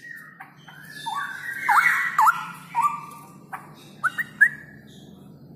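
Straw-headed bulbul singing a loud, clear phrase of rich whistled notes, some swooping down and back up in loops. A few short upward-flicking notes follow about four seconds in.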